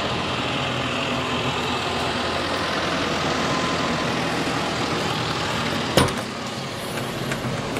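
Tractor's diesel engine idling steadily. Just after six seconds there is a single sharp click as the cab door latch is opened.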